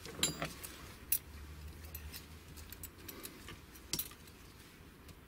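A few faint metallic clicks and light handling noise as gloved hands work a Vespa primary gear and its shim together.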